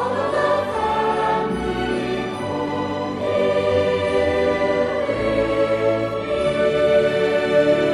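Background music: a choir singing sustained, held notes over orchestral accompaniment.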